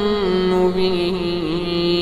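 Male reciter chanting the Quran in the melodic tajwid style, holding one long, wavering note that steps slightly lower as it goes.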